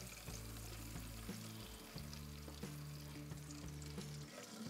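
Hot oil sizzling and bubbling around freshly deep-fried baby potatoes as they drain in a steel colander.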